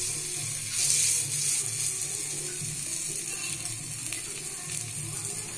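Appam batter frying in hot oil in a multi-cup appam pan: a steady sizzle, louder for about a second shortly after the start.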